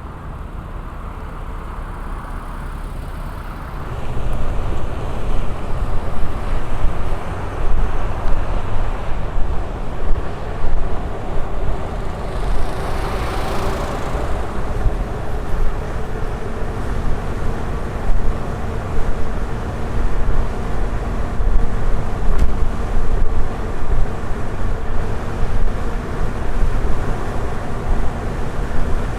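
Wind buffeting the microphone and a low road rumble while riding an electric unicycle, over a faint steady motor whine; the rumble grows louder about four seconds in. A brief rushing swell rises and fades near the middle.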